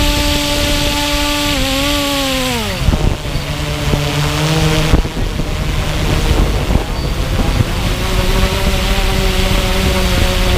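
A motor running with a steady pitched hum that sags and drops sharply about three seconds in, settles lower, then hums at a new steady pitch from about eight seconds, with wind buffeting the microphone.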